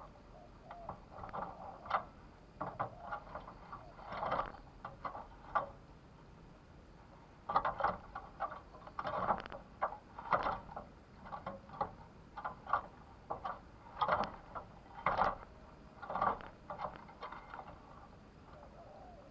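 Irregular clicking and tapping in clusters. A spotted dove coos faintly near the start.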